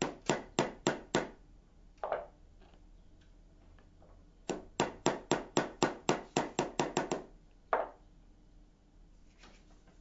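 Small hammer tapping a punch to drive the pivot pin of a metal detector cam-lock home through its flange: a quick run of about five taps, a single tap, then a longer run of about a dozen taps and one last tap.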